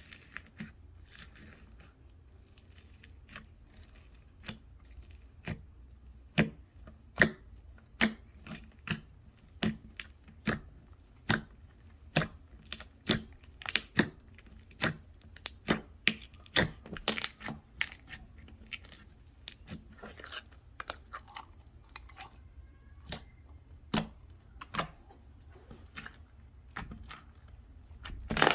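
Slime being pressed and played with by hand, giving a long run of sharp clicks and pops, about one or two a second, loudest through the middle.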